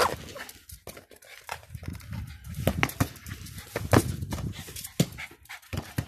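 Pomeranian playing with a plastic ball on patio paving: a string of short, sharp knocks and scuffs, with the small dog's own vocal sounds among them.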